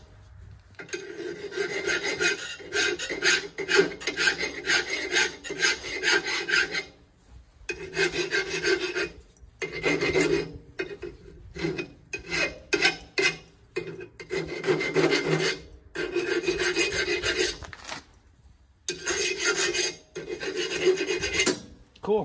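Hand file rasping back and forth across the rusted steel exhaust pipe stub of a garden tractor's engine, smoothing off rust and crud so a new muffler will slip on. Stroke follows stroke in runs of a few seconds with short pauses between, and the strokes come quicker and shorter midway.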